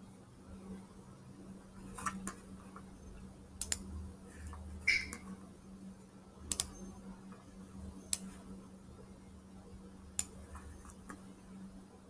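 Computer mouse clicking, sharp single and double clicks a second or two apart, over a low steady hum.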